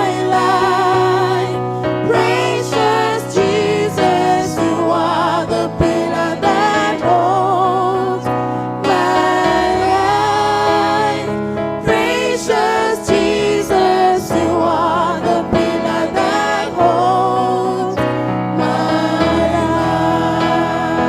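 Gospel choir singing a slow song with vibrato over sustained keyboard chords and a bass line.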